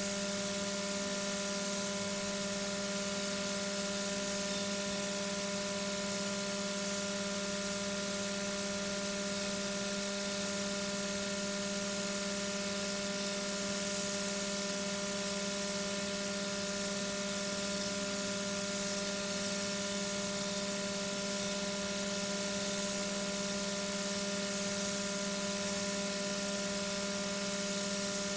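Steady electrical hum made of several constant tones over an even high hiss, unchanging throughout.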